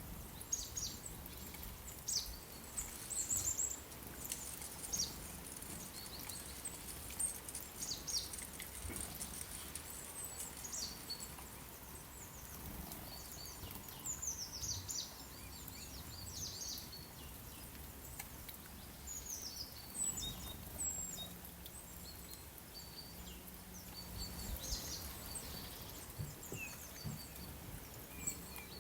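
Small birds chirping and singing, many short high calls and quick falling notes scattered throughout, over a faint steady background hiss.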